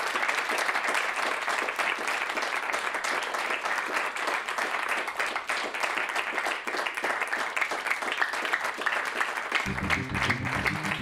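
Audience clapping steadily. Music with a drum beat comes in near the end.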